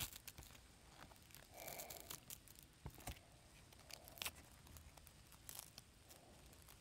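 Near silence, with faint rustling and a few soft clicks as a gold metallic ribbon and rubber loom band are handled.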